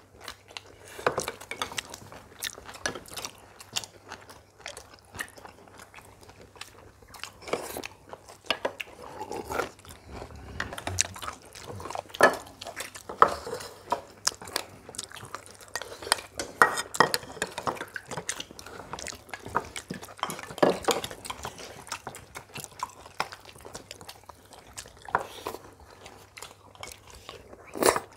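People eating a meal: chopsticks and spoons clicking irregularly against ceramic bowls and plates, mixed with chewing.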